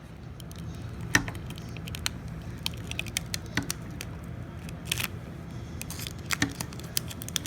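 Goggles, their case and small accessory parts being handled by hand: scattered light clicks and rattles, with a sharper click about a second in, over a low steady hum.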